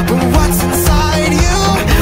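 Pop song playing loudly: a melody over a steady beat.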